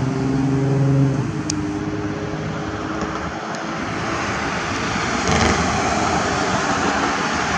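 Engine noise: a steady pitched hum that fades out about a second in, then a broad rushing noise that swells around five seconds in.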